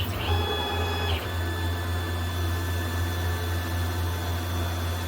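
Tormach CNC lathe running a cut on UHMW plastic: a steady motor hum with a high whine over it. The whine drops in pitch for about a second shortly after the start, then returns to its earlier pitch.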